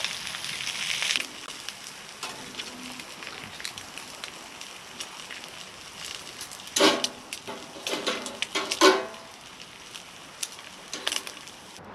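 Food sizzling and crackling in a pan on a wood-burning camp stove, louder for the first second and then steadier. Between about seven and nine seconds, a few louder clanks and scrapes of cookware cut through.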